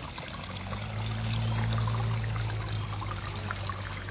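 Water trickling through a flooded rice paddy, with small splashes as rice seedlings are pulled from the mud. A steady low hum from an unseen motor comes in about a second in and fades toward the end.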